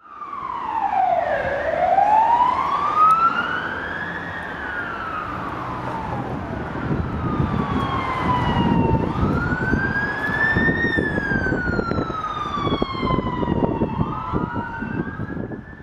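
Emergency vehicle siren wailing, its pitch sweeping slowly up and down several times over a rushing background noise. Near the end a second rising tone overlaps it.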